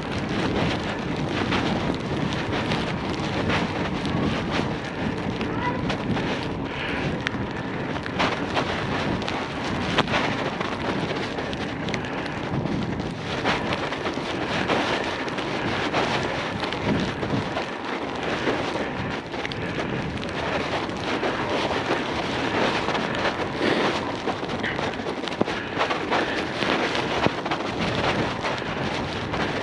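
Bicycle tyres rolling over fresh snow, a steady noise dotted with many small clicks and knocks, mixed with wind on the action camera's microphone.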